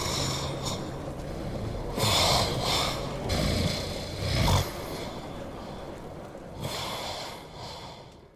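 A neighbour's snoring: several snores in a row, the loudest about two and four seconds in and a weaker one near the end, before the sound fades out.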